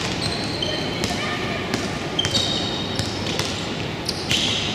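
Basketball game in a gym: a ball bouncing on the court, short high sneaker squeaks, and indistinct voices of players and spectators.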